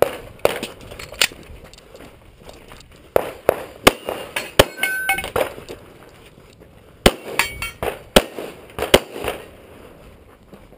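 Smith & Wesson M&P9 9mm pistol being fired in uneven strings of about nine loud shots. Some shots are followed by a brief metallic ring.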